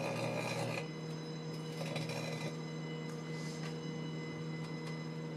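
Microwave oven running with a steady electrical hum.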